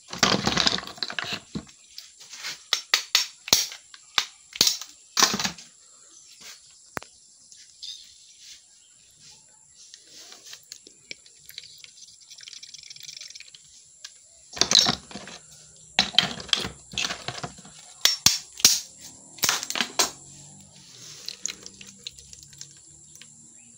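Snail shells clicking and knocking in gloved hands while slime is squeezed from them over a plastic bucket. The sharp clicks come irregularly, in a busy cluster at the start and again in the second half, with quieter stretches between.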